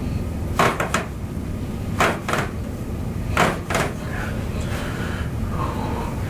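Three pairs of short, sharp knocks about a second and a half apart, then none, over a steady low rumble.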